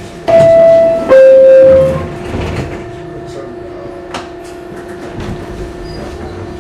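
R62A subway car's two-tone door chime, a higher note then a lower one, each just under a second long, signalling that the doors are about to close. A steady hum runs underneath, and a few sharp clicks follow as the sliding doors close.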